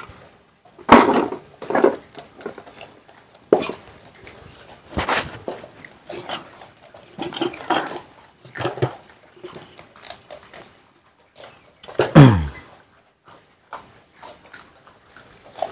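Irregular clinks and rattles of a wire cage and a food tray while an Asian palm civet feeds on cut water apple. About twelve seconds in, a short louder sound drops sharply in pitch.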